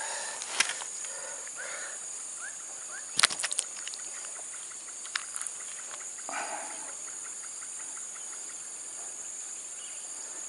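Steady high-pitched drone of insects, crickets or cicadas, with a few sharp clicks, a quick cluster of them a few seconds in.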